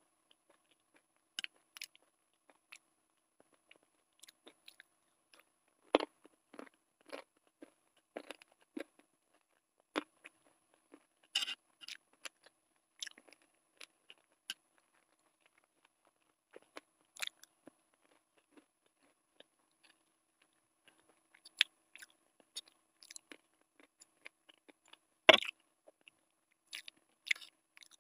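Close-miked chewing and mouth sounds of a person eating chicken curry and Maggi noodles: scattered short smacks and clicks with quiet gaps between, and one sharper, louder click about 25 seconds in.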